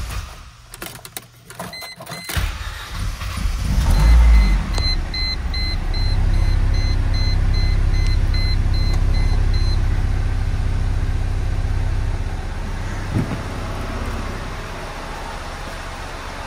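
2002 Mercedes SLK230's 2.3-litre supercharged four-cylinder engine cranking and catching about four seconds in with a brief loud flare. It then runs at a fast idle and settles to a lower idle around twelve seconds in. A dashboard warning chime beeps repeatedly until about ten seconds in.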